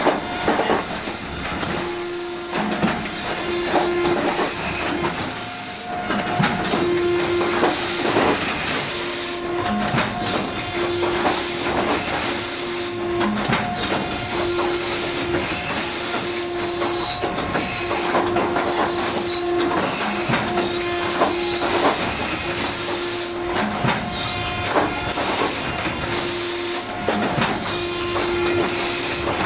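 Machinery of a Mark 45 5-inch naval gun's automatic loader cycling: repeated short bursts of hissing, over a low electronic warning beep that pulses on and off about once a second.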